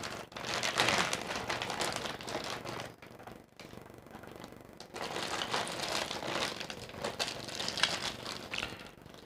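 Clear plastic bags crinkling as they are handled and pulled open, in two spells with a quieter pause around the middle.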